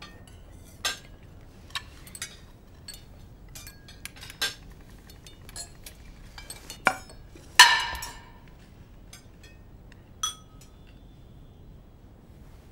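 Plates, glasses and cutlery clinking at a dinner table: a scattering of light, separate clinks, with the loudest, a ringing clink of china or glass, a little past the middle.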